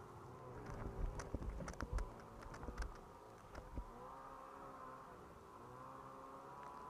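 Snowmobile engine running ahead at a fairly steady pitch that wavers slightly, with a cluster of sharp knocks and low thumps between about one and four seconds in.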